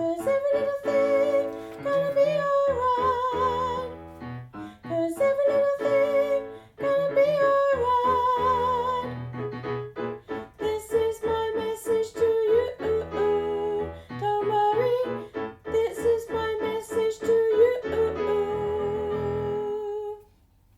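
Female voices singing with piano accompaniment, closing on a long held note that stops near the end.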